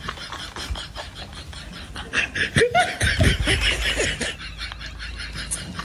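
A person laughing in short repeated bursts, loudest and highest between about two and four seconds in.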